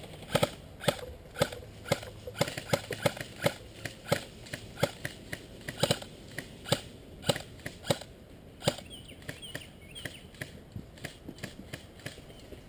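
Airsoft guns firing: a string of sharp, irregular pops, several a second, thinning out and growing fainter after about eight seconds.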